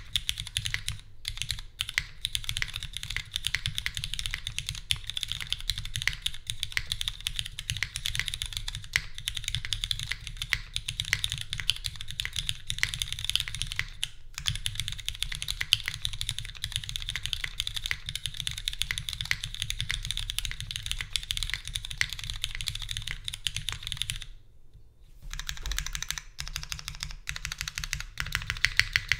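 Fast, continuous typing on a Pearlboards Pandora 60% custom mechanical keyboard with lubed and filmed Cherry MX Black linear switches, GMK keycaps, a full aluminium plate and no foam. Dense keystroke clacks run on, with a brief pause about 24 seconds in.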